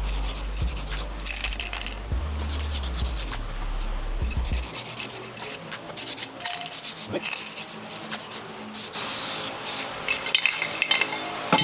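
Aerosol spray paint can hissing in short bursts, with a low hum underneath that stops about four and a half seconds in, and a run of sharp clicks near the end.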